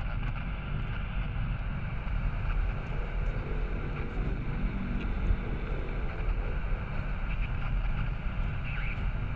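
Steady outdoor ambience: a constant low rumble under a faint hiss, with no distinct events.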